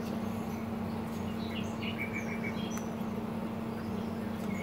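Pellet grill's combustion fan running with a steady hum, turned down on a fan rheostat to the startup setting while the igniter is on. Birds chirp in the background, with a quick run of short chirps about two seconds in.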